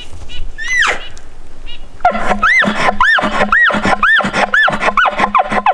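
Elk bugle: a high whistle sliding steeply down about a second in, then from about two seconds in a run of about seven chuckles, roughly two a second, each a high rise-and-fall note over a low steady drone. It cuts off abruptly at the end.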